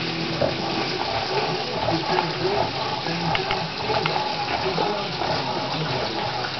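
A litter of young Olde English Bulldogge puppies whimpering and squeaking over one another in many short, overlapping cries, over a steady hiss.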